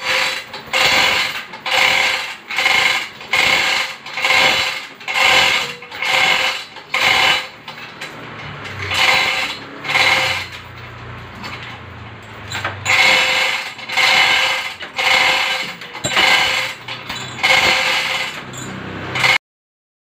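Manual chain hoist worked by pulling its hand chain hand over hand: a rhythmic metallic clatter of chain links and ratchet, about one and a half pulls a second, easing off for a few seconds midway before picking up again.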